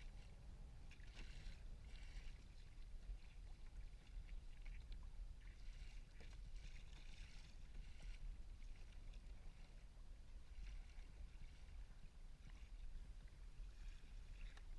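Kayak paddling heard faintly: soft splashes and drips of water off the paddle blades in recurring bursts every few seconds, over a low steady rumble.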